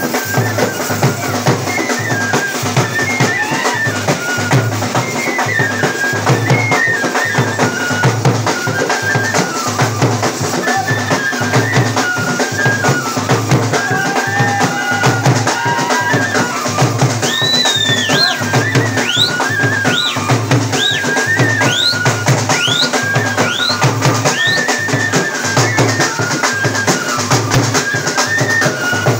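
Live folk dance music: hand-played drums beat a steady rhythm, about two beats a second, under a repeated high melody. A run of short rising whistles comes in about two-thirds of the way through.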